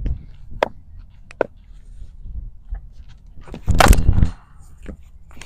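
Cricket bat striking the ball hard in a lofted drive: one loud hit about three and a half seconds in, after a few lighter taps.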